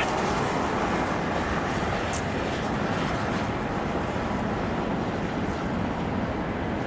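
Steady, even rush of jet engine noise from an Airbus A380 taxiing slowly at low power.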